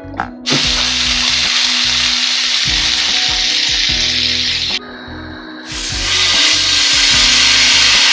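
Beef sizzling in a hot frying pan. The sizzle starts suddenly about half a second in, breaks off just before the halfway point, then builds back up over the next second or so.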